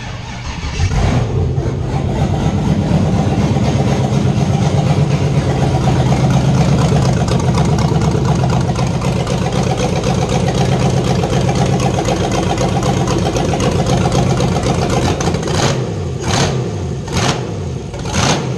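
GM 5.3 L LS V8 cranking briefly on the starter and catching within about a second on its first start, then running loud through open, forward-facing stock truck exhaust manifolds with no exhaust fitted. The owner likens the sound to a drag boat.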